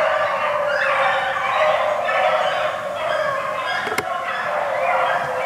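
A pack of beagles baying together in full cry on a rabbit's trail, many overlapping voices going without a break.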